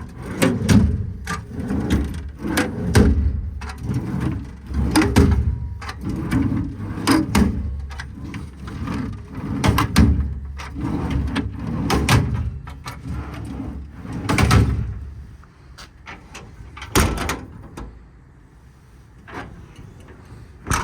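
Metal twist-lock drawers in a truck service-body compartment being slid open and shut one after another, with rolling rumbles and clattering knocks. A single sharp bang comes near the end.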